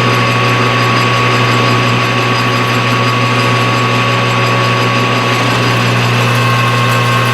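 Machine tool running steadily with a low hum and a steady higher whine, taking light cuts to bring a thick coaster blank down to thickness.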